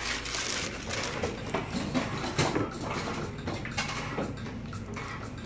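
Instant ramen's plastic wrapper crinkling and rustling in a run of irregular crackles as the packet is torn open and the dry noodle block is pulled out into a bowl.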